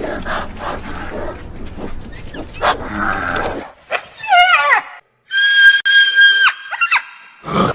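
Calls of several different animals, one after another: a rough, noisy stretch with clicks for about three and a half seconds, then a short call falling in pitch, then a steady high-pitched call held for about a second.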